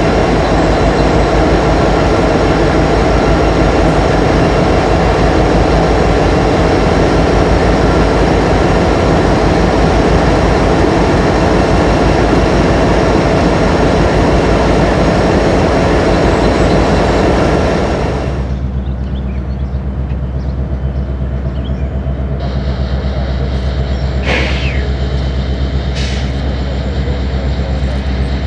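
Train rolling past: a loud, steady rumble of wheels and cars that gives way abruptly about two-thirds of the way through to a quieter, steady low engine hum with a few short high squeaks.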